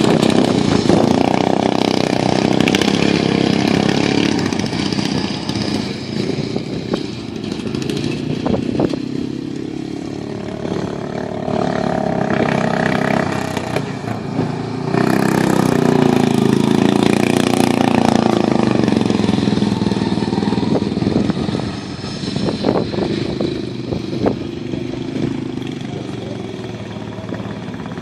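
Riding lawn mower engines, Briggs and Stratton 12.5 hp, running hard under racing load, their pitch rising and falling as they rev up and ease off, loudest about halfway through.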